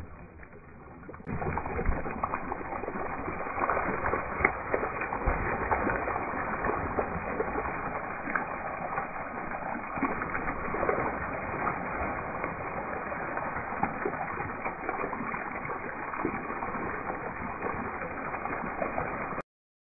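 Water splashing and dripping: a steady crackling rush full of small ticks, starting about a second in and cutting off suddenly near the end.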